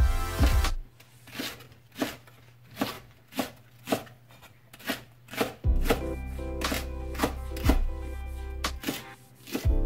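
Chef's knife chopping a Korean green onion (daepa) into chunks on a wooden cutting board: steady sharp knocks of the blade on the board, about two a second.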